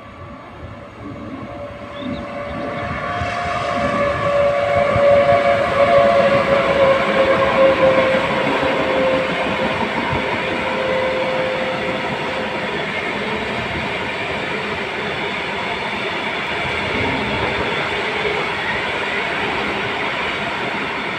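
Freight train passing: a Pesa Gama electric locomotive goes by with a whine that slowly falls in pitch, followed by a long string of bulk tank wagons rolling past steadily on the rails. The noise builds over the first few seconds and stays loud as the wagons go by.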